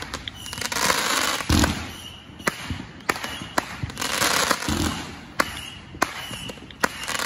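Multi-shot aerial fireworks cake firing in volleys. Two deep launch thumps, many sharp bangs and crackles from the bursts, and stretches of hiss between them.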